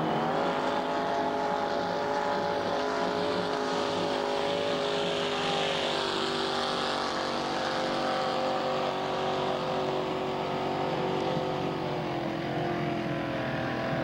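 A 468 cubic-inch big-block Chevrolet V8 inboard in a flatbottom ski boat runs hard at speed, a steady engine note with a hiss of water spray. The pitch climbs at the start and drops slightly near the end.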